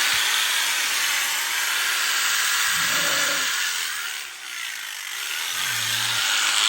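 Electric sheep-shearing clippers running and cutting through fleece, a steady buzzing hiss that eases briefly a little past the middle.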